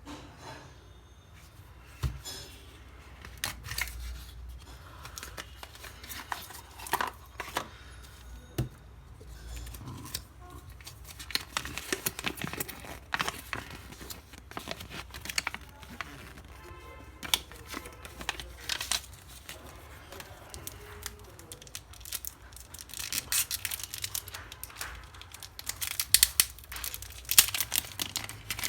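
Plastic wrapping and packaging being torn open and crinkled, with irregular rustles and clicks that grow busier towards the end, as speed cubes are unboxed.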